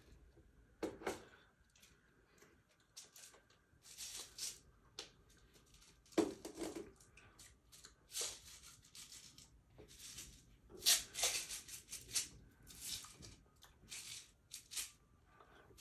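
A small plastic gum container being twisted and handled, giving a string of short, irregular rattling and scraping noises, loudest about eleven seconds in.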